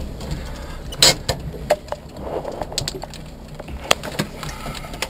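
The cabin of a Subaru Impreza rally car rolling to a stop, its engine failed for lack of oil pressure: a low hum with scattered clicks and knocks, the sharpest about a second in.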